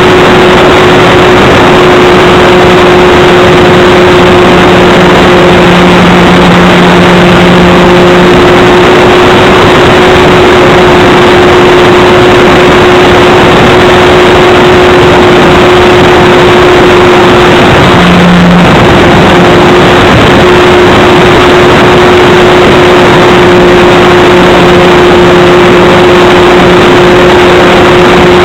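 Onboard sound of a small radio-controlled plane's electric motor and propeller running steadily under wind noise, loud and distorted, with a steady whine that briefly drops out and changes about two-thirds of the way through, as the throttle shifts.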